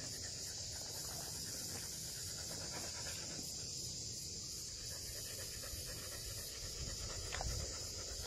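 Australian Kelpie panting, over a steady high drone of insects.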